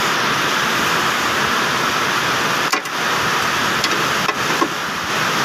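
A steady rushing hiss of background noise, with a few faint clicks near the middle and towards the end.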